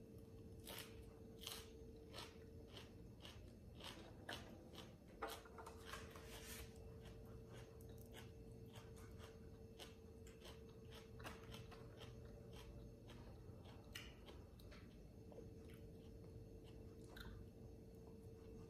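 Close-up eating sounds: a mouthful of fresh herbs being chewed with many small crisp crunches. The crunches are dense for the first several seconds, then come fewer and softer.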